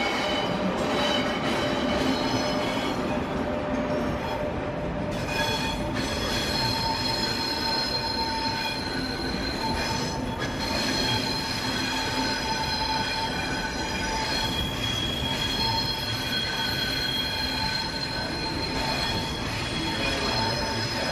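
Train wheels squealing in several steady high-pitched tones over the running noise of a moving train, with the squeal changing pitch about five seconds in.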